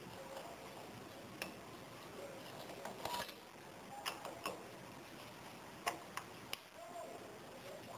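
Scattered light clicks and small metal ticks as a Phillips screwdriver works screws loose on the head of a shoulder-mounted brush cutter.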